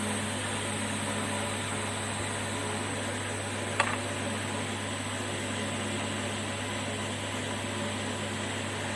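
Steady motor hum and hiss of a small fan running, with one short click about four seconds in.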